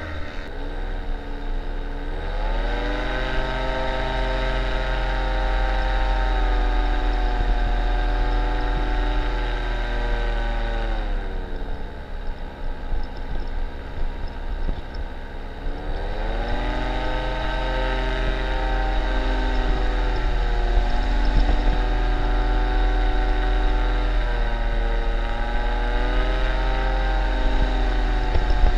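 Paramotor engine and propeller running in flight: the engine pitch rises about two seconds in, holds steady, drops back around eleven seconds, then rises again around sixteen seconds and holds high.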